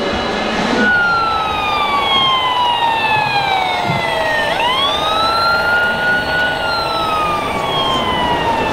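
Wailing siren of an RC model fire truck's sound system: the tone falls slowly in pitch, winds quickly back up about halfway through, holds briefly, then falls slowly again, over steady background noise.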